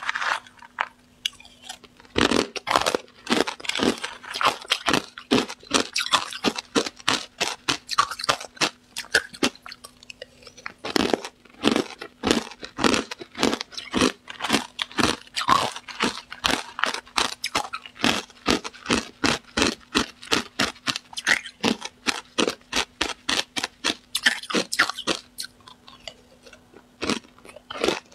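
Hard ice chunks coated in green powder being bitten and chewed close to a lapel microphone: rapid, steady crunching that goes on with hardly a pause.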